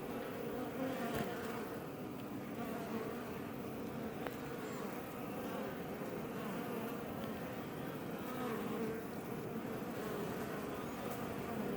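A swarm of Iberian honey bees buzzing around a Langstroth hive, making a steady, dense hum.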